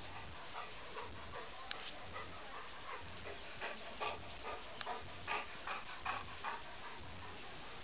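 Dog panting close up, a run of quick breaths about three a second from about three seconds in.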